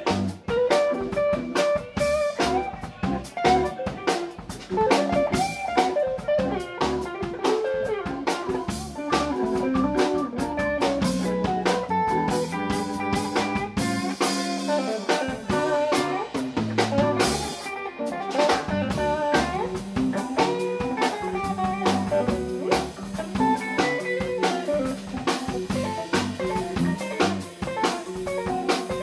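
Live instrumental band playing: Hammond B-3 organ and hollow-body electric guitar over bass and drum kit, in a bluesy groove.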